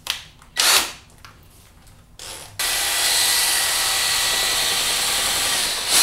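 Ryobi cordless drill spinning a paddle mixer in a bucket of joint compound, thinning the mud with added water. It gives two short bursts, then from about two and a half seconds in runs steadily at speed.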